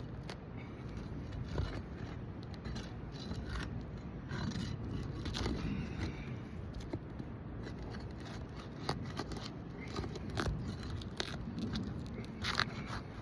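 Asphalt roof shingles being worked loose by hand and tool: irregular scraping and sharp crackling clicks over a steady low rumble of wind on the microphone, with a busier cluster of scrapes near the end.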